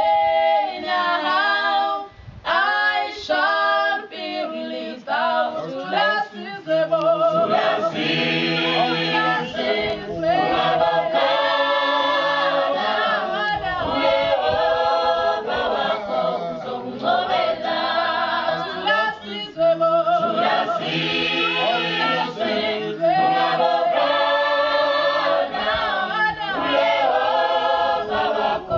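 Mixed choir of men's and women's voices singing a cappella in Swazi traditional style, in harmony. The singing breaks off briefly about two seconds in and grows fuller from about seven seconds in.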